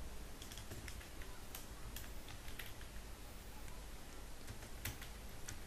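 Typing on a computer keyboard: a handful of faint, irregularly spaced keystrokes.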